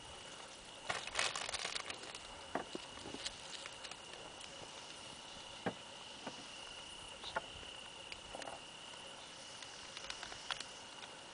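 A steady high insect trill runs throughout, with scattered soft clicks and rustles close by and a dense burst of them about a second in.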